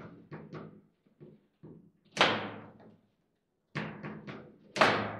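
Foosball table in play: a run of hard plastic knocks and clacks as the ball is struck by the figures on the rods. Two much louder strikes come about two seconds in and near the end, among lighter taps, with a short quiet pause between them.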